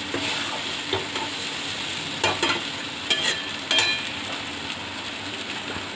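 Flat metal spatula stirring and scraping thick semolina halwa around a metal kadai, over a steady frying sizzle. A few sharper metal-on-metal scrapes come about two to four seconds in.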